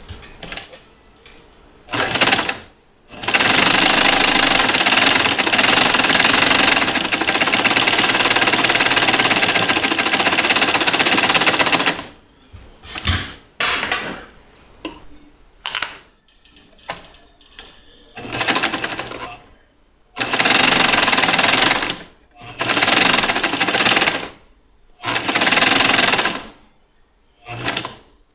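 Electric sewing machine stitching a straight seam through fabric. It runs once for about nine seconds without stopping, then in several short runs of one to two seconds with brief pauses between.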